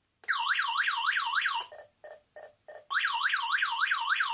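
Home security alarm system's electronic siren going off, tripped by its PIR motion sensor: a loud, fast warbling wail sweeping up and down about five times a second. About a second and a half in it breaks into a few short lower beeps, then the warble starts again.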